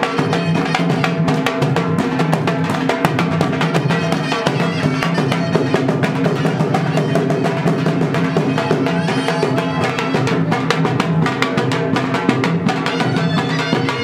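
Two dhols, double-headed barrel drums, beaten in a fast, dense dance rhythm, with steady held tones sounding underneath the drumming.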